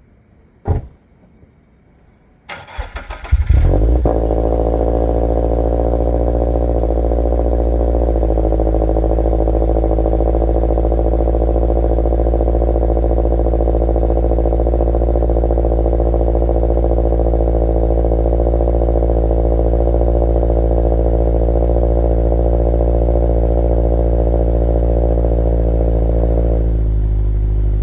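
A short click, then the 2.4-litre flat-four of a 2022-on Toyota GR86/Subaru BRZ is cranked over by the starter and catches on a cold start with a brief rev flare, settling into a loud, steady fast idle. It breathes through an A'PEXi N1 Evo Extreme single-exit cat-back with a JDL unequal-length header and front pipe. The idle drops slightly near the end as it comes down from the cold-start high idle.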